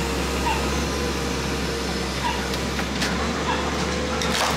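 Doosan hydraulic excavator's diesel engine running steadily under load, with a steady whine over a low hum, as its demolition grab works on a brick house. Near the end, debris starts crashing and clattering down.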